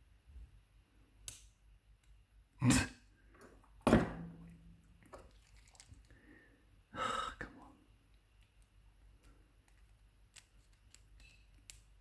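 Scattered small metal clicks and knocks of a screwdriver prying at a lock cylinder's circlip. The sharpest knock comes about four seconds in and rings briefly, with a rougher scraping sound around seven seconds.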